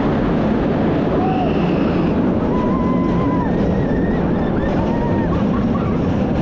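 Kumba's B&M sit-down coaster train running along its track: a steady, loud rumble with wind rushing over the onboard microphone. Faint, short, wavering high squeals sit above the roar.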